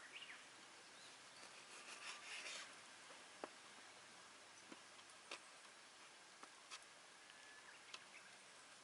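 Near silence with a handful of faint, scattered clicks and a few short scraping rustles: a knife cutting raw chicken on a board.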